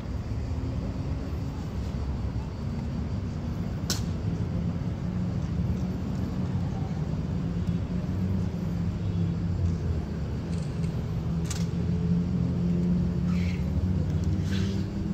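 Road traffic running steadily, with an engine drone that builds from about four seconds in and eases off near the end. A few sharp clacks cut through it.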